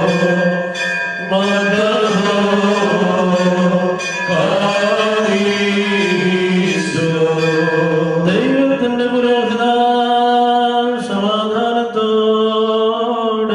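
A man chanting a liturgical funeral hymn into a microphone, in long held notes that step between pitches, with a bell ringing along.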